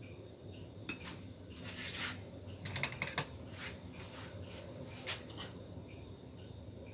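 Spoon clinking and scraping against a ceramic bowl while stirring batter and coating banana pieces: a run of light, irregular clinks for about four seconds.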